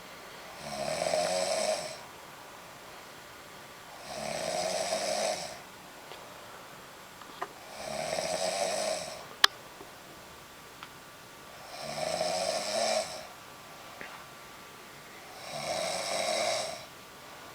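A woman snoring in a slow, regular rhythm: five snores about four seconds apart, each lasting just over a second. A single sharp click sounds about nine and a half seconds in.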